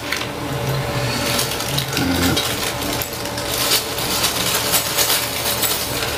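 A small plastic zip bag of electronic components being handled and opened: irregular crinkling of the plastic, with small parts rattling and clicking inside.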